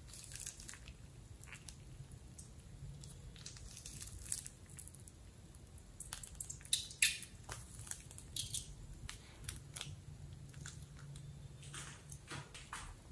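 Sticky clicks and plastic crinkles as slime is squeezed out of a plastic piping bag onto wet slime. A few sharper, louder clicks come a little past the middle.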